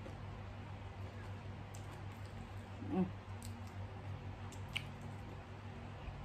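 Quiet eating sounds: faint clicks and wet squishy noises as grilled chicken is pulled apart by hand and chewed, over a steady low hum. A short voiced hum comes about three seconds in.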